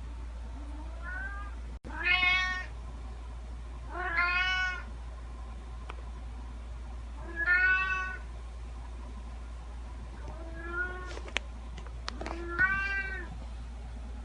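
Domestic cat meowing repeatedly: about six separate meows a couple of seconds apart, some faint and some loud, each rising and falling in pitch. A few sharp clicks come near the end, over a steady low hum.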